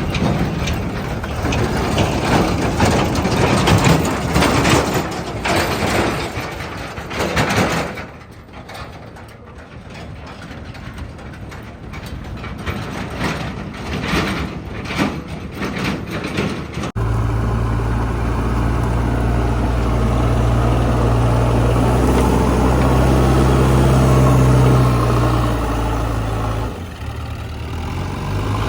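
Heavy diesel machinery working: engine noise with a run of clattering knocks. After an abrupt cut about halfway through, a steady low diesel engine drone follows and drops off a little near the end.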